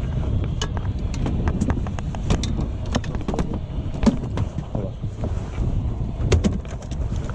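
Wind rumbling on the microphone aboard a small fishing boat, with scattered sharp knocks and clicks, the loudest about four seconds in.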